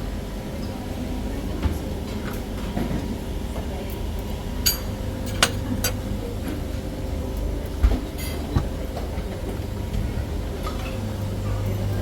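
Serving utensils and dishes clinking at a breakfast buffet, several short sharp clinks about halfway through and one more near the end, over a steady low hum.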